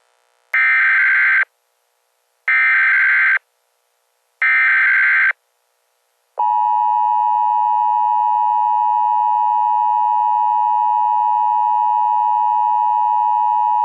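Emergency Alert System header: three short bursts of screeching SAME digital data tones, each just under a second long with about a second of silence between them. About six seconds in, the EAS two-tone attention signal starts, a steady, harsh dual-pitch tone that holds unchanged.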